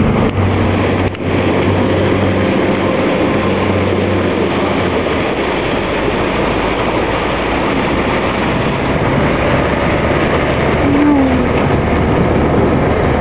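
A van's engine running as it drives slowly along a road covered by shallow floodwater, with a steady rush of noise from water, tyres and wind. The engine hum is clear for the first few seconds, then sinks into the noise.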